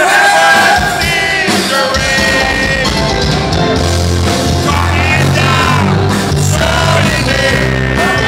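Loud rock music with a heavy bass line, and men's voices singing and shouting along with it.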